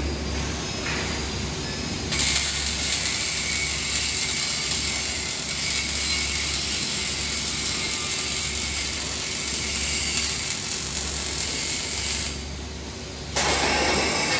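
Robotic wire-fed arc welding on steel: the arc strikes about two seconds in and crackles and hisses steadily, stops for about a second near the end, then strikes again. A low steady hum from the welding equipment runs underneath.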